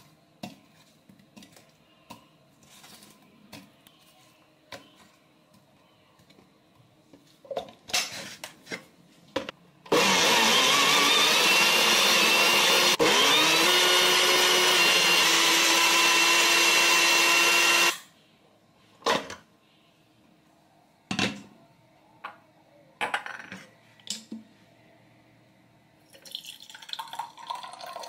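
Countertop blender puréeing watermelon chunks into juice. It runs loud for about eight seconds, its whine rising as the motor spins up, then stops abruptly. Around it are light knocks of fruit pieces and the jar being handled, and near the end, juice poured from the jar into a glass mug.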